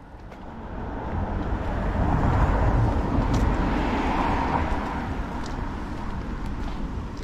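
A motor vehicle passing close by: a rush of engine and road noise that swells up, is loudest two to four seconds in, then slowly fades.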